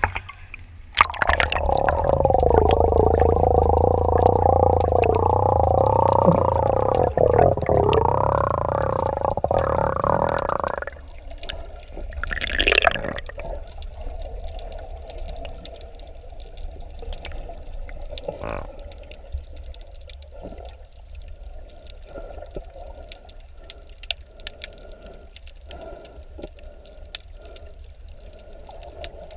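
Underwater sound picked up by a submerged camera. A loud, muffled hum with a wavering pitch runs for about the first ten seconds and then stops suddenly. After that comes quieter water noise with scattered crackling clicks and a brief burst of bubbles a little after that.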